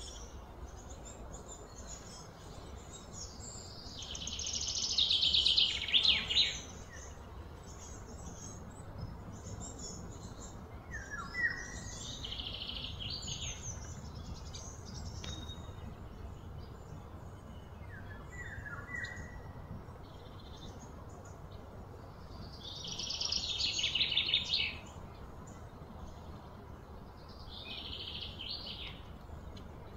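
Outdoor ambience of insects buzzing in two loud, high swells, one about four seconds in and another around twenty-three seconds, with fainter buzzes between, short bird chirps now and then, and a steady low background rumble.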